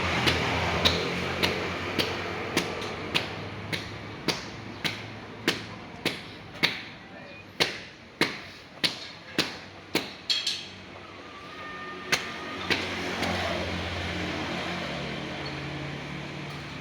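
Sharp, regular tapping knocks, a little under two a second, which stop about 13 seconds in. Then the steady low hum of a motor vehicle's engine comes up.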